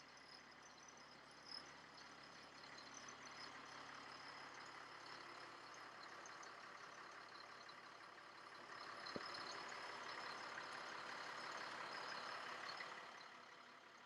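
Faint sound of the LMTV truck's Caterpillar C7 six-cylinder turbodiesel running. It grows louder a little past the middle for about four seconds before easing back, with a single click near the start of that swell.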